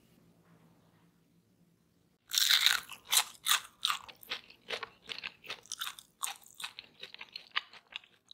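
Quiet for about two seconds, then a loud crunchy bite into a crispy fried mashed-potato-and-cornmeal ball, followed by rhythmic crunchy chewing, roughly two to three crunches a second, growing gradually softer.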